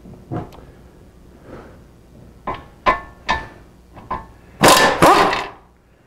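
Air impact wrench with a 3/4-inch socket on the tie rod end's castle nut: a few metallic clinks as the socket goes on, then two short loud bursts of hammering toward the end as the nut is spun off.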